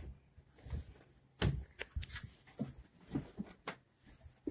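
A dog making a few short whining sounds among footsteps and knocks from handling.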